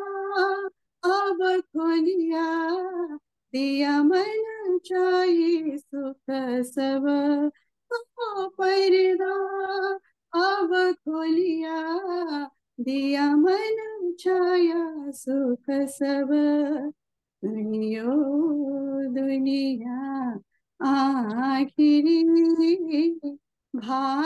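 A woman singing a devotional Sindhi vani hymn unaccompanied, heard over a Zoom call. Her voice cuts out abruptly in short gaps between and within phrases, which the host puts down to Zoom dropping the sound.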